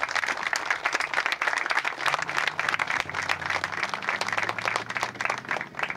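A crowd applauding: many hands clapping in a dense, even patter that fades out near the end.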